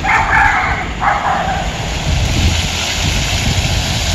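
Plaza fountain water splashing over a steady rush of city street noise, with three short, sharp calls from an unseen source in the first second and a half.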